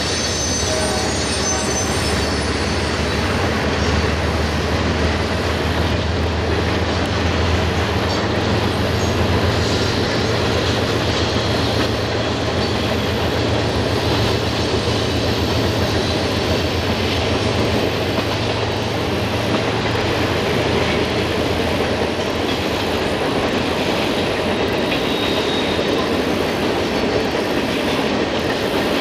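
Freight cars of a long mixed freight train rolling past steadily: a continuous rumble of steel wheels on rail, with faint high wheel squeal near the start and again near the end. The deep low rumble eases about two-thirds of the way through.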